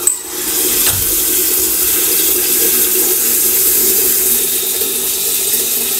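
Kitchen tap turned on and running steadily, filling a kettle for tea.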